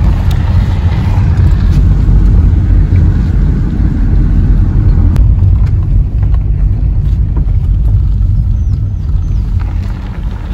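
Car driving along a gravel road, heard from inside the cabin: a steady, loud low rumble of engine and road noise with occasional faint ticks.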